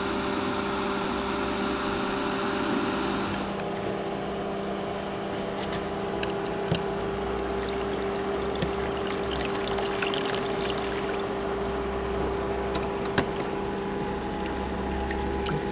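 A boat bilge pump running submerged in a tub of water, pumping it through a hose to the heater core of a homemade air cooler: a steady motor hum with water splashing and trickling. A few light knocks come as the pump and hose are handled.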